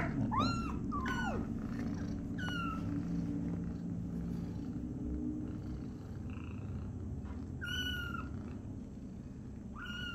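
Kitten giving short, shrill, high-pitched mews, about five in all, several in the first three seconds and two more near the end, over a steady cat purr that fades out about halfway through.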